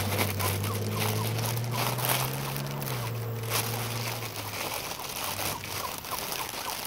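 Clear plastic wrapping crinkling and rustling in the hands as a small portable light is worked out of its bag. Under it, a low steady hum fades out about two-thirds of the way through.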